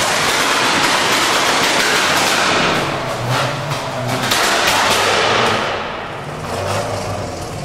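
Modified car's exhaust under hard acceleration, loud and rough, with a run of sharp pops, dying away about two thirds of the way through.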